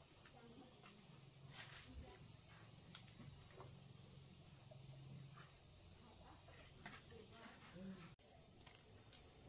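Near silence: faint background tone with a steady high-pitched hiss and a few light clicks and knocks.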